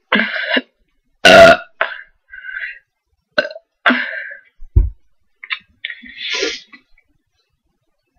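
A string of short, loud burps of varying length, brought up after gulping carbonated cola; the loudest comes about a second in, and they stop about seven seconds in.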